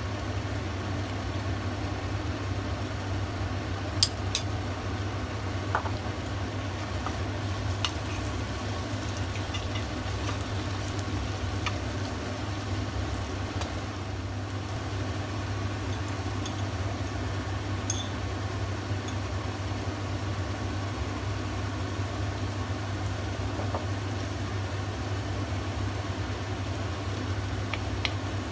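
Chicken and onions frying in a pot: a steady sizzle with a few scattered pops, over a steady low hum.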